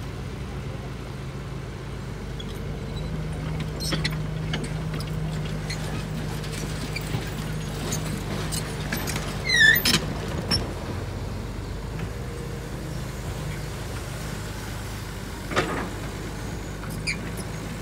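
Caterpillar 320C tracked excavator's diesel engine running steadily under working load as the arm digs and swings, a little louder a few seconds in. A short high squeal cuts through about halfway, and a single knock comes near the end.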